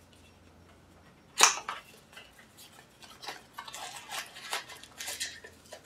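Small white cardboard box being handled and opened: one sharp snap about a second and a half in, then scattered rustling and scraping of cardboard.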